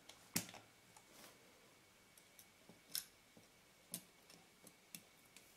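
A handful of faint, sharp clicks, spaced roughly a second apart, from metal tweezers and a thin metal ring being fitted onto a camera lens body.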